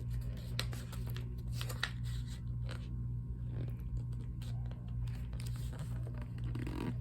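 Sheet of paper being folded and creased by hand: scattered short crinkles and rustles over a steady low hum.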